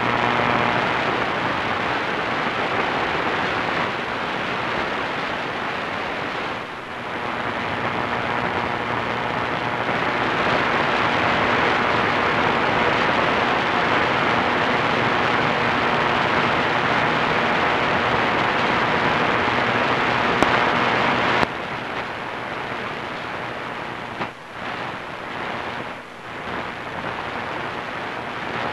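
AM radio receiver tuned to a distant station on 1490 kHz, giving a steady hiss of static with no programme audible. The noise drops suddenly about 21 seconds in and dips a few times after, as the signal fades.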